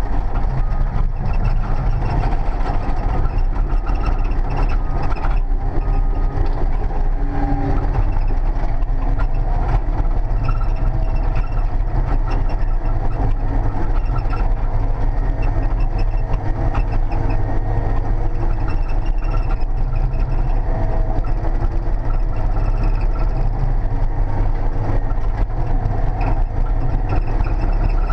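Large diesel engine of an earthmoving machine running steadily under load, heard from inside the operator's cab: a constant low drone with no pauses.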